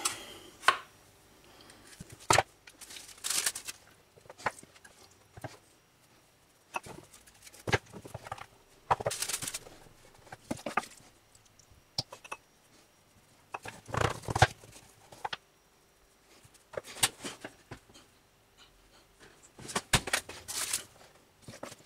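Intermittent clicks, taps and rustles of hands at work: a plastic pie press being opened and shut and pastry pasties being set down on a metal baking tray, in scattered clusters with short quiet gaps.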